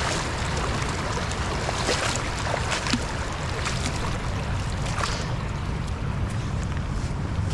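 Steady wind noise on the microphone over running water, with footsteps splashing through a shallow stream and then stepping on loose stones, a few sharp knocks among them.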